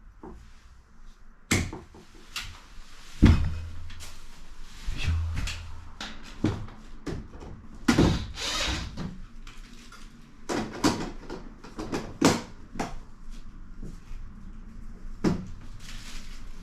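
Irregular knocks, clunks and scraping, the sound of materials and tools being handled, with a few louder thuds about three seconds in and around twelve seconds in.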